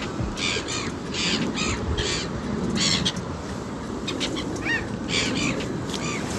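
Birds giving a run of short, harsh calls in quick clusters, with a brief whistled note about five seconds in, over a steady low rumble.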